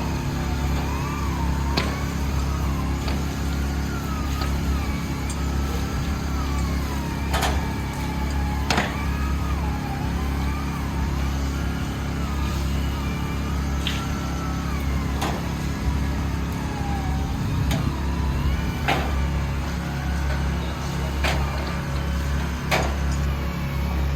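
High-pressure washer machinery running steadily: a deep hum with a wavering whine above it and scattered sharp clicks.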